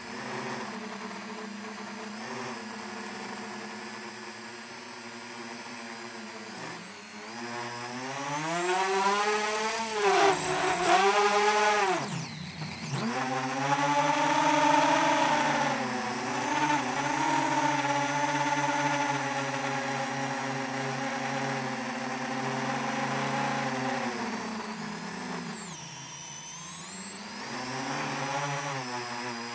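7-inch FPV quadcopter's motors and propellers whining, heard from its own onboard camera. The pitch rises and falls with the throttle: it spins up at the start and climbs to a high, wavering whine about ten seconds in. It cuts away sharply near thirteen seconds, then holds a steadier whine with a dip near twenty-six seconds.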